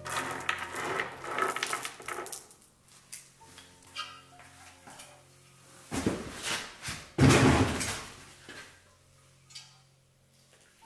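Small metal bolts clinking and rattling on a wooden board as a gloved hand gathers them, then louder metallic knocks and clatter a few seconds later as the engine's oil pan is handled. Soft piano music plays underneath.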